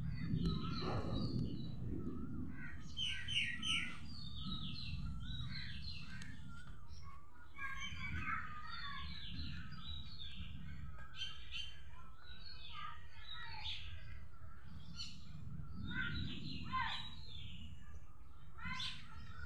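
Several small birds chirping and twittering, short quick calls repeating throughout, over a low steady rumble.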